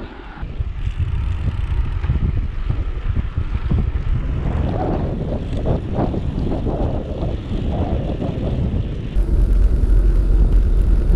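Wind buffeting the microphone of a rider on a moving bicycle, a loud steady rumble. A vehicle passes about halfway through, and the wind rumble grows louder near the end.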